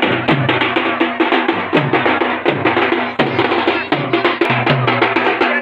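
Live street drumming on dhol-type barrel drums and small rimmed drums, played with sticks: a fast run of sharp strokes over deep bass beats about every three-quarters of a second, each dropping slightly in pitch.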